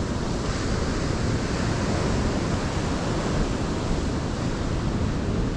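Ocean surf breaking and washing up the beach in a steady rush, with wind on the microphone adding a low rumble.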